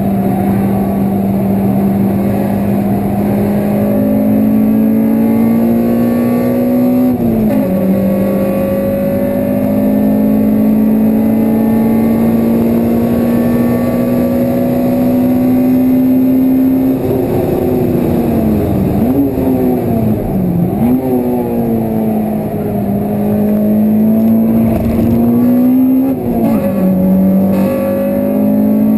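Honda Civic Type R (EP3) 2.0-litre i-VTEC four-cylinder engine heard from inside the cabin, pulling hard at high revs with its pitch slowly climbing. The revs drop sharply at a gear change about a quarter of the way in. Past the middle the revs fall away and dip twice before climbing again, and another drop near the end marks a second upshift.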